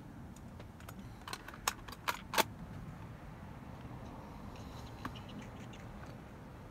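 A cluster of sharp clicks from handling a cassette Walkman and its headphones, starting about a second in, the two loudest near two seconds in, then a few fainter ticks around five seconds in, over a low steady hum.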